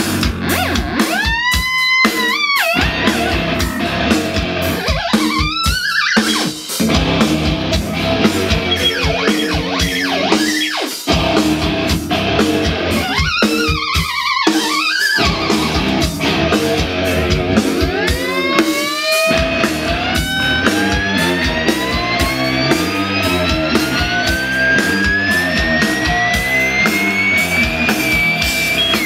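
A theremin played over a loud backing track with a steady beat. Its pitch swoops up and down in several arches, then climbs in one long, slow rising glide over the last ten seconds.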